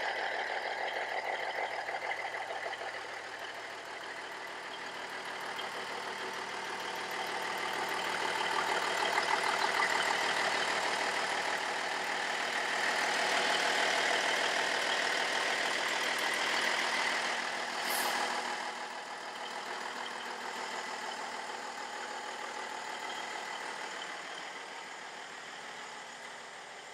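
The M925A1 military truck's 855-cubic-inch six-cylinder Cummins diesel idling steadily, louder in the middle and fading toward the end. About eighteen seconds in there is one brief sharp hiss.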